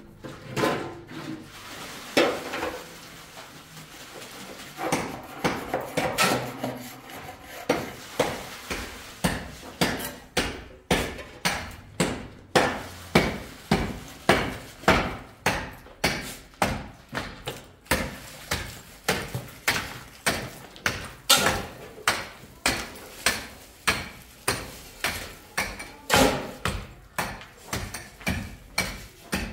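Repeated sharp knocks of a hand tool striking a hard surface: irregular for the first several seconds, then a steady rhythm of about two strikes a second from about eight seconds in.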